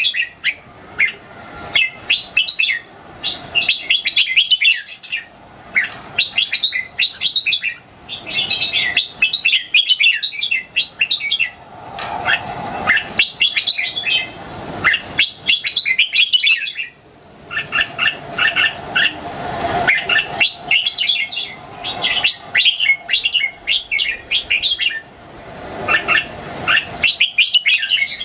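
Young red-whiskered bulbul singing: short, bright, chattering phrases one after another with brief pauses between them.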